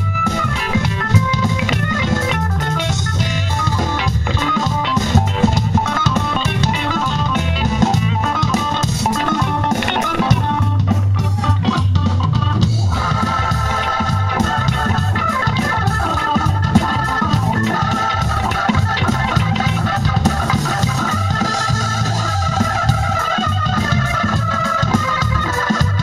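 Live funk band playing: electric guitar and bass over a drum kit, with held organ chords taking over about halfway through.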